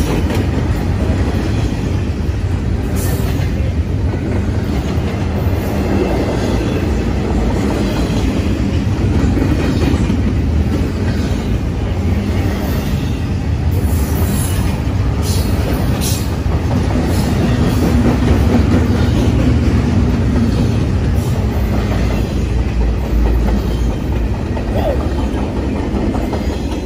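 BNSF double-stack container train's well cars rolling past at speed: a steady heavy rumble with wheel clatter, broken by a few brief sharp high-pitched squeals or rattles. The noise begins to ease near the end as the tail of the train goes by.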